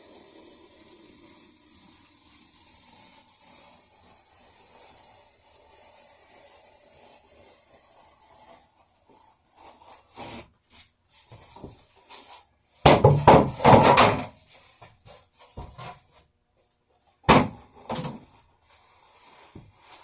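Serrated bread knife sawing through a foam mattress pad for cushion stuffing: irregular scraping strokes that start about halfway in, loudest in a run of strokes past the middle and two more near the end.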